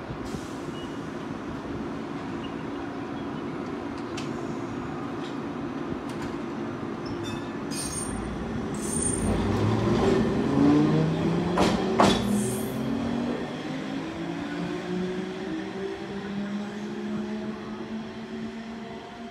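Hankai Tramway car 351's nose-suspended traction motors under resistance control, pulling away from a stop. After a steady hum while standing, the motor whine starts about nine seconds in and climbs in pitch in steps as the tram accelerates. There is a sharp clank around twelve seconds, and the sound fades as the tram draws away.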